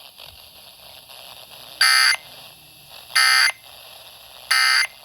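Emergency Alert System end-of-message data signal over radio: three short bursts of harsh digital buzzing about a second and a half apart, marking the end of the alert. Between the bursts, a steady radio hiss.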